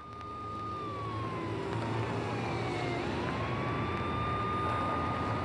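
Synthesizer tone in electronic music: one held note that slides slowly down for about three seconds, then glides back up to its starting pitch. Underneath, a low hum and a hiss slowly grow louder.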